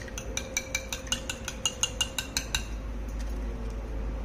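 Small steel strainer clicking and scraping against the rim and side of a black pot while skimming floating barley husks off the liquid: a fast run of light clicks, several a second, that stops about two and a half seconds in.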